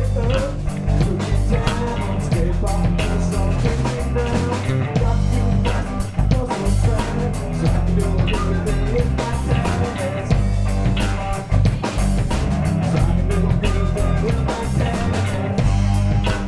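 Live rock trio playing an instrumental passage: guitar over bass guitar and a drum kit.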